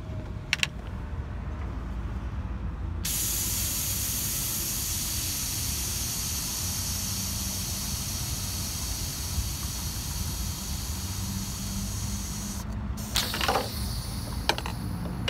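Test pressure being let out of a Freightliner DD15 cooling system through the pressure tester on the coolant tank, a steady hiss that starts about three seconds in and cuts off sharply some ten seconds later. A few clicks from the tester's fittings come near the start and again near the end.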